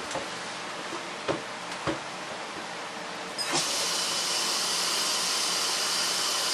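A few light knocks, then about three and a half seconds in a tap is turned on and hot water runs steadily into the carpet shampooer's water tank.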